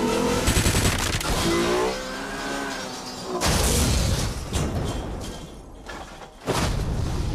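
Film sound effects of a black Alfa Romeo saloon crashing off a road and tumbling down a rocky quarry slope: crunching impacts of metal on rock with falling debris. There is a loud crash about three and a half seconds in and another near the end, a rising engine note in the first two seconds, and the film score underneath.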